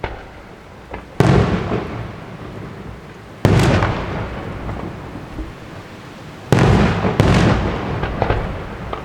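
Fireworks bursting: four loud bangs, about one, three and a half, six and a half and seven seconds in, each trailing off in a long rolling echo, with a few smaller pops between.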